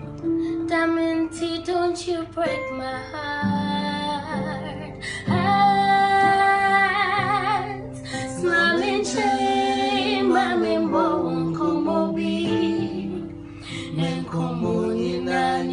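Electronic keyboard playing chords, with a singing voice carrying a melody over it; the sung notes waver with vibrato and glide down between phrases.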